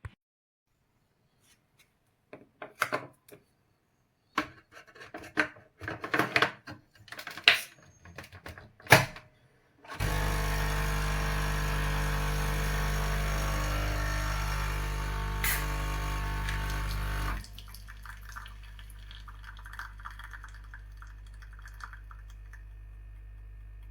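A string of clicks and knocks as a Dolce Gusto pod coffee machine is handled, then its pump starts and buzzes steadily for about seven seconds, cutting off sharply to a faint hum.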